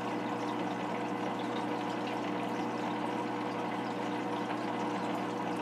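Aquarium pump humming steadily, a low electrical buzz with a faint hiss of moving water over it.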